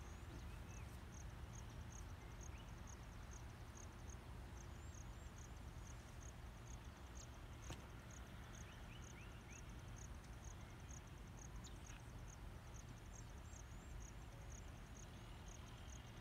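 Faint, steady insect chirping: a high, evenly repeated pulse several times a second over a low outdoor rumble, with a few short faint bird chirps now and then.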